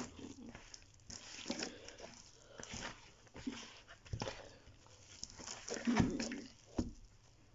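Yeast dough being kneaded by hand in a plastic bowl: irregular squishing and slapping, with dull thumps about four, six and seven seconds in, the one at six the loudest.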